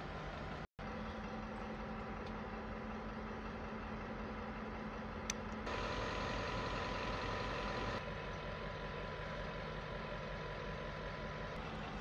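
M62-class diesel locomotive idling at a standstill, a steady engine hum with a thin steady whine above it, louder for about two seconds in the middle.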